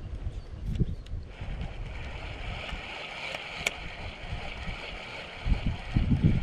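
Wind rumbling on the microphone in gusts, strongest near the end, with a steady higher hiss or whir that sets in about a second in.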